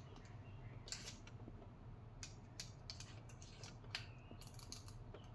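Faint, scattered clicks and light clinks of metal hand tools being handled and sorted, a small cluster of them about four and a half seconds in.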